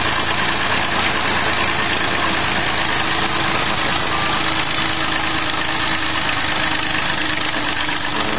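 Diesel tractor engine running steadily at an even speed, fuelled on a blend of 80% jatropha biodiesel and 20% fossil diesel.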